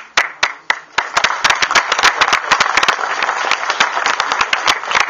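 Audience applauding: a few scattered claps at first, then full applause from about a second in, with some loud single claps standing out.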